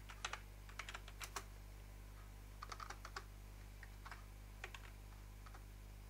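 Computer keyboard being typed on: short clusters of a few key clicks with pauses between them, over a low steady hum.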